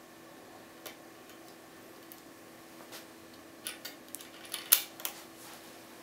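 Small sharp metallic clicks and ticks of lock picking tools working in a brass Vachette V5 euro cylinder: a few sparse ones at first, then a quick cluster in the second half, the loudest about two-thirds of the way through.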